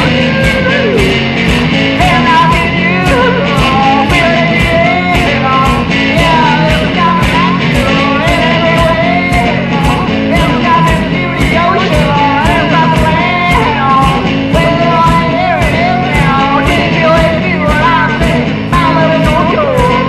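Rock music with electric guitar over a steady drum beat of about two beats a second.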